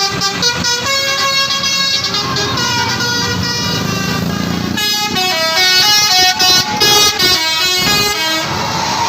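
Bus telolet basuri horn, a set of air horns playing a melody as a run of short, stepped notes, growing louder about five seconds in.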